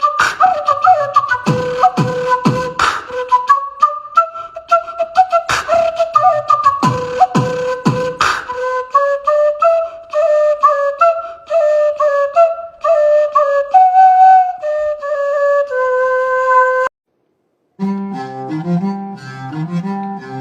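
Background music: a flute-like melody over punchy electronic drum hits. It cuts out for about a second near the end, then a different piece with a repeating low string pattern starts.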